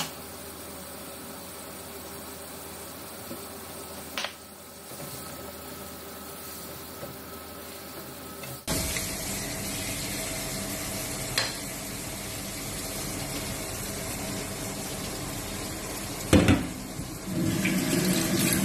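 Chopped tomatoes with garlic and bagoong sizzling and simmering in a nonstick pan, with the odd sharp knock of a silicone spatula against the pan. The sizzle gets louder about halfway through. Near the end come a few louder thumps and rustles as grilled eggplant goes into the pan.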